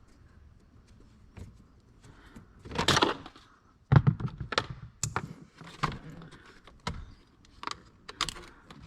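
Hand tools and plastic dash trim being worked loose: scattered clicks and knocks, a short scrape about three seconds in, and a sharp knock about a second later.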